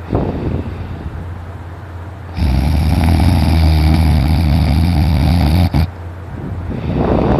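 Very loud snoring from someone in deep sleep. A quieter breath comes first, then one long, low, rattling snore lasting about three seconds that cuts off sharply, then another breath that builds again near the end.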